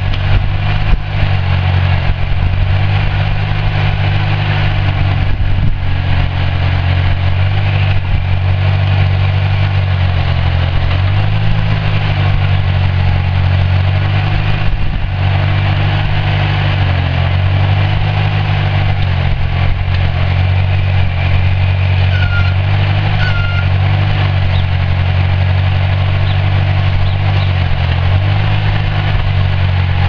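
Engine of a homemade tractor-backhoe running steadily while its hydraulic backhoe arm is worked, the pitch dipping briefly a few times. Two short high chirps a second apart about two-thirds of the way through.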